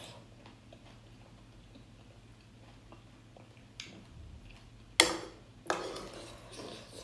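Eating sounds: quiet chewing, then a sharp click or crunch about five seconds in and a smaller one shortly after.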